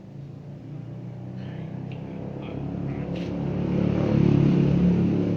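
A vehicle engine rumbling, growing louder to a peak about four seconds in, then starting to fade, as of a vehicle passing by.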